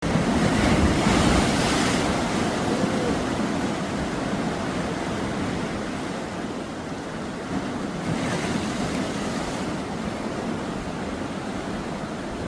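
Sea waves breaking and washing up a beach, with a louder surge at the start and another about eight seconds in.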